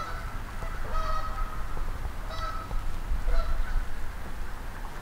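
Geese honking off in the distance: several short honks, roughly one a second.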